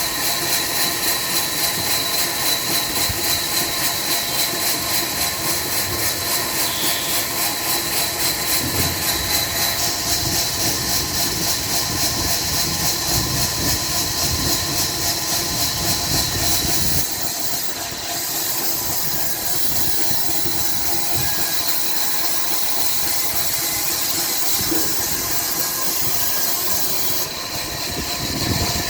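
Diesel-driven sawmill machinery running steadily, with an even pulsing beat and a strong hiss over it. The sound drops briefly twice, about two-thirds of the way in and again near the end.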